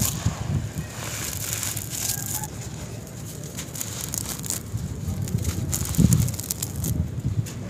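Hands crumbling clumps of dry, gritty concrete-and-sand dirt: a soft, crackly crunch as the clumps break apart and the grains and gravel trickle back onto the heap. A louder low thump comes about six seconds in.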